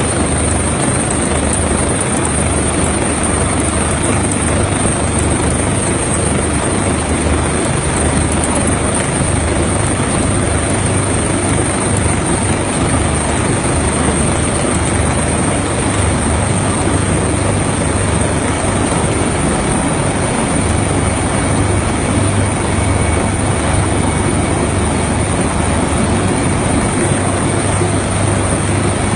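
Helicopter hovering close by: loud, steady rotor and engine noise.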